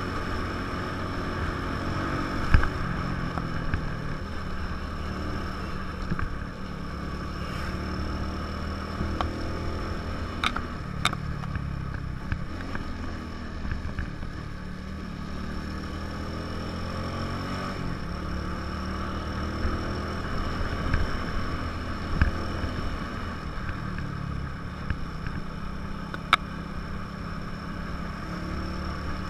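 A 150 cc motorcycle engine running while riding, its pitch rising and falling with the throttle, over wind noise, with a few short knocks.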